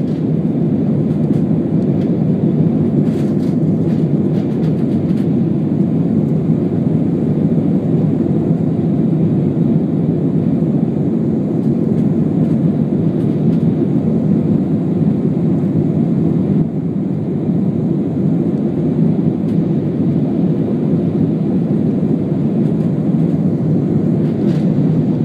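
Steady cabin noise inside a jet airliner climbing out: the low, even rumble of the turbofan engines and rushing air, unbroken and constant in level.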